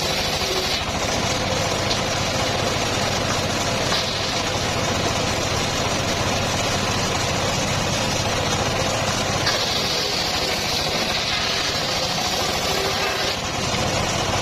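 Homemade circular sawmill rig running steadily: a continuous mechanical engine drone, with a brighter hiss that rises briefly about four seconds in and again from about nine and a half to thirteen seconds in.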